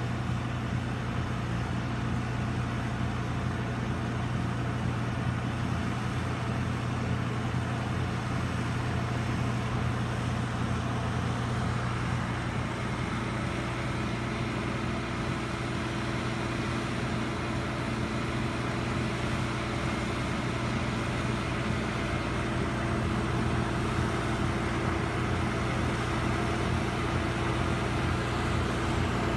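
Massey Ferguson 1428V compact tractor running its snowblower: a steady engine hum under a wide hiss of snow being thrown, growing a little louder in the last third as the tractor comes closer.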